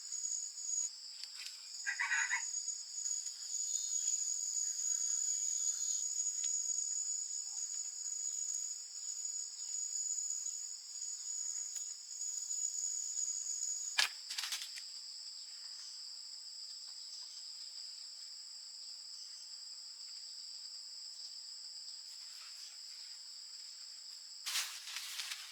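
Steady, high-pitched chorus of insects. A single sharp snap comes about halfway through, and a brief rustle near the end.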